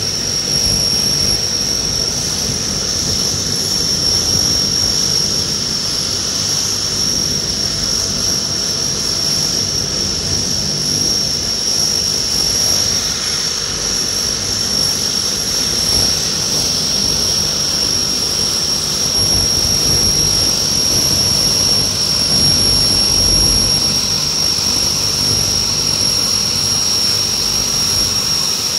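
The Allison turboprop engines of a Convair 580 running, a steady high turbine whine over the churn of the propellers, as the aircraft begins to taxi and turn.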